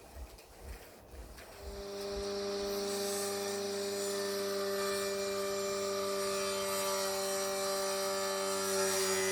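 An electric power tool starting up about a second and a half in and running at a steady speed with an even hum. From about two and a half seconds a steady hiss of it working the material joins the hum.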